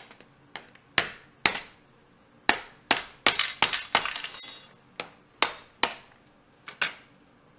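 The back of a kitchen knife striking the shell of a steamed lobster's crusher claw on a metal baking sheet, about fifteen sharp knocks at an uneven pace to crack it open. A quicker run of strikes a few seconds in rings metallically.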